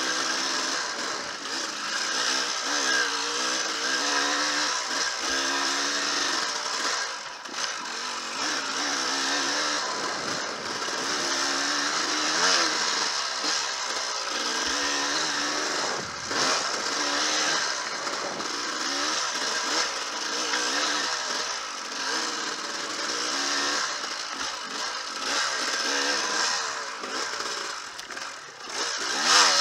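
Dirt bike engine heard from on board, revving up and down over and over as the throttle is worked, never settling at a steady speed.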